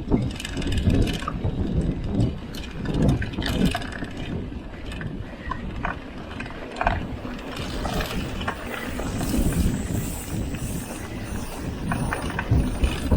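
Mountain bike ridden over rough trail, its chain and parts rattling with irregular clicks and knocks over a steady low rumble.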